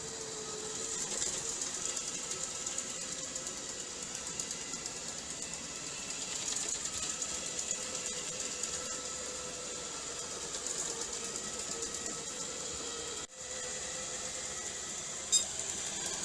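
ILIFE robot vacuum running steadily: a whirring motor and brush hum with a high hiss. It cuts out for a moment about thirteen seconds in, and a short sharp click comes near the end.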